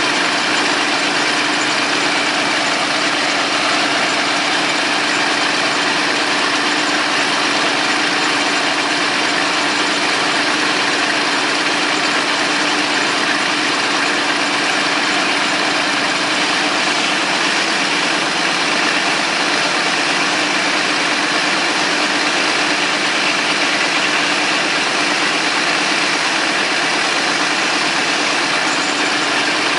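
Vintage Caterpillar D13000 diesel engine running at a steady, unchanging speed.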